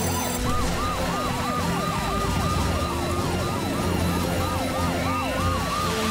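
Several emergency sirens sounding together, each rising and falling quickly so that their wails overlap in a continuous, even pattern.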